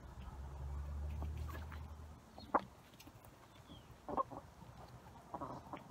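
Backyard hens and a rooster clucking a few short times, the sharpest about two and a half seconds in and a small run near the end. A low rumble fills the first two seconds.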